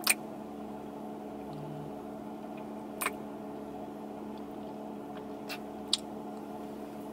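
Steady hum of a car's interior, with a few short sharp clicks: one right at the start, one about three seconds in, and two close together near the end.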